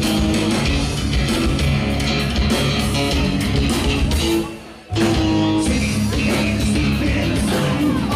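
Live rock song played on acoustic guitars by a band. The music cuts out sharply for about half a second just past halfway, then comes back in at full level.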